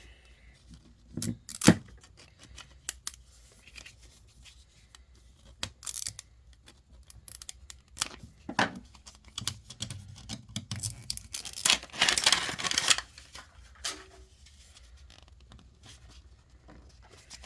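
Plastic packaging of a Miniverse collectible capsule being torn open and crinkled, with scattered small plastic clicks and rattles and a longer rip about twelve seconds in.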